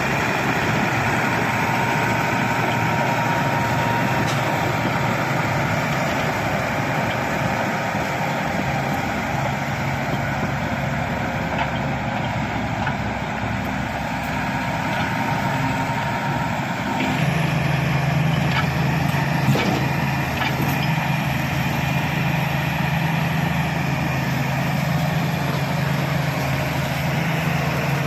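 Shantui SD16 bulldozer's diesel engine running steadily; a little past halfway its low engine note grows louder.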